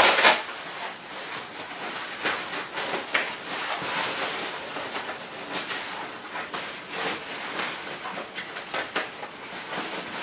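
A waterproof canvas stroller seat liner being fitted: fabric rustling and rubbing as its hook-and-loop tabs are pressed and tucked into the seat, in irregular strokes.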